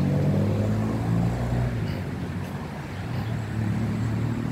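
A motor vehicle's engine running with a low, steady hum that weakens about halfway through and grows stronger again near the end.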